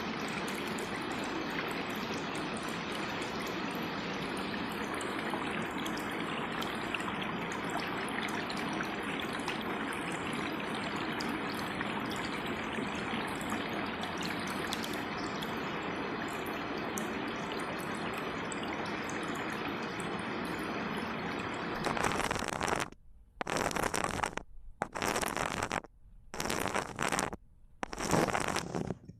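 Flowing water rushing steadily, an even watery noise. About 22 seconds in it turns choppy: several louder bursts of noise broken by sudden short gaps of silence.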